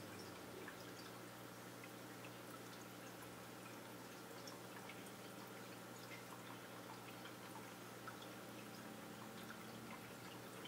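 Faint running aquarium: a steady low hum with light, scattered drips and ticks of water throughout.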